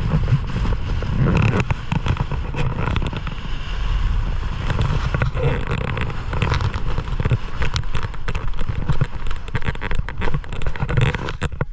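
Strong gusty wind buffeting the camera's microphone: a heavy low rumble broken by many sharp crackling pops.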